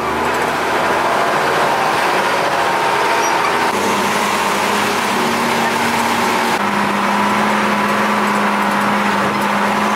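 Unimog truck's engine running as it drives along a gravel track, heard from its open-sided passenger body, together with tyre and road noise. The engine note changes about four seconds in and again near seven seconds.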